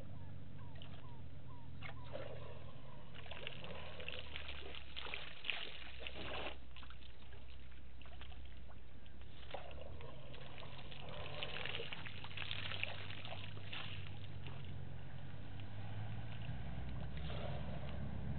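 African bush elephant bull drinking: water splashing and trickling as it draws trunkfuls from the waterhole and squirts them into its mouth, in three spells about three seconds in, midway and near the end. A low steady hum runs underneath.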